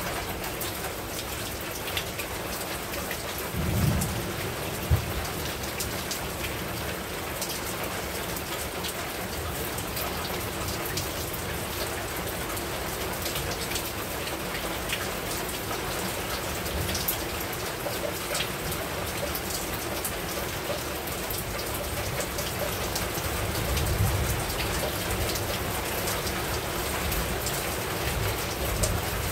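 Heavy rain falling steadily, with sharp ticks of single drops striking close by. Brief low thunder rumbles come about four seconds in and again near the end.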